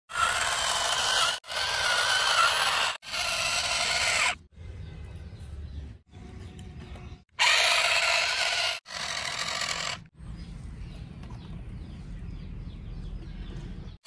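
Small electric motors and plastic gears of toy RC vehicles whirring, in short bursts that cut off abruptly every one to two seconds. Louder stretches alternate with quieter ones that carry a low rumble and faint ticking.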